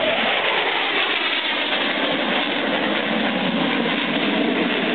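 Jet noise from an F-4 Phantom II's two General Electric J79 turbojets during a flyby: a steady, even rush with no clear rise or fall in pitch.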